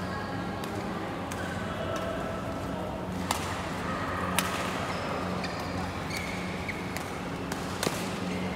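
Badminton rackets smacking a shuttlecock, several sharp hits with the loudest about three seconds in, about four and a half seconds in and near the end, mixed with short high squeaks of shoes on the court floor, over a steady low hum.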